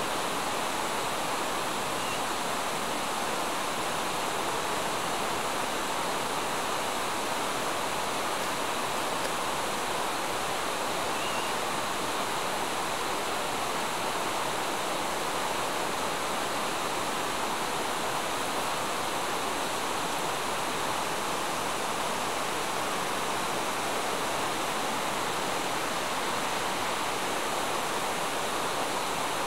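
Steady, even rushing noise that does not change, in the manner of flowing water.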